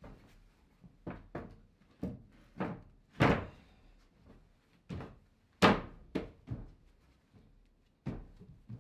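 Plywood floor panels knocking and thudding as they are set down and shifted into place on wooden framing: a dozen or so irregular thunks, the two loudest about three and six seconds in.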